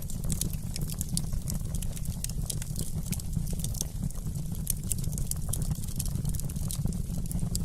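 Wood fire crackling: many small, irregular sharp pops over a steady low rumble of the flames.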